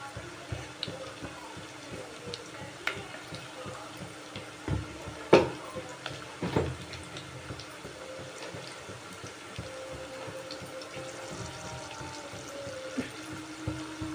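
Sliced onions frying in hot oil in an aluminium pot, giving a steady sizzle, with a few sharp clicks near the middle.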